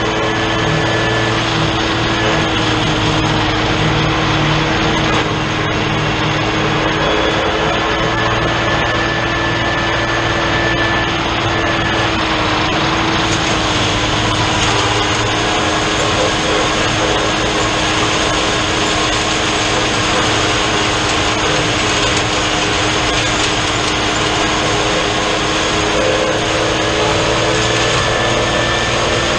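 New Holland TN70 tractor's diesel engine running steadily under load, driving a SaMASZ drum mower that is spinning and cutting standing hay; a steady drone with a constant hum.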